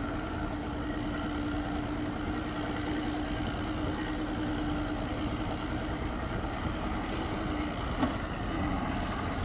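Outboard motor of a small boat running steadily, a held drone that stops about eight seconds in, over a steady rush of wind and water noise.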